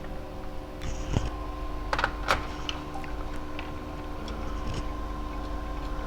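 Small clicks and taps of hand work on a laptop's plastic case, with screws being refitted using a screwdriver. A few sharper clicks come one to two seconds in, over a steady hum.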